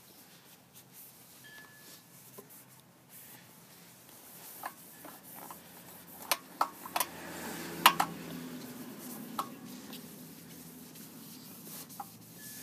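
Scattered sharp clicks and light knocks of small hard objects being handled, most of them between about five and ten seconds in, the loudest about eight seconds in, over a faint low rumble.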